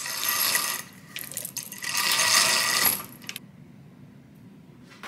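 Metal bead chain of a roller blind pulled by hand, rattling and clicking through the blind's mechanism in two pulls, the second ending about three seconds in.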